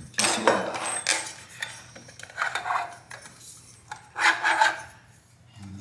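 Metal parts of a Woodbridge freestanding tub filler being handled: rubbing and scraping with light metallic clinks, in four short bursts.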